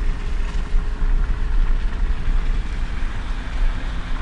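Car driving: a steady rumble of engine and tyre noise heard from inside the cabin.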